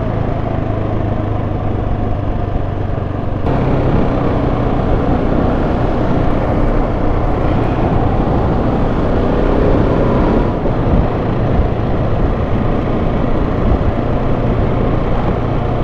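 Dual-sport motorcycle engine running steadily at road speed, heard from the rider's own Husqvarna under a heavy rush of wind noise on the helmet-mounted microphone. The rush gets brighter and louder about three and a half seconds in.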